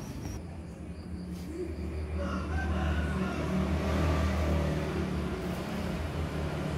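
A low engine hum that swells to its loudest about four seconds in and then eases off.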